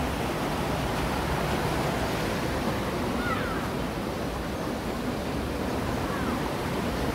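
Water rushing over a small weir, a steady, even rush of falling water.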